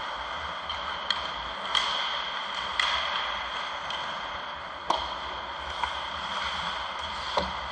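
Ice hockey play: several sharp clacks of sticks hitting the puck and the ice, over a steady wash of skates on ice and rink noise.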